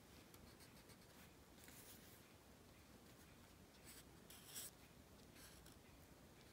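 Felt-tip marker writing on paper: several faint, short scratchy strokes, the loudest a little after four seconds in.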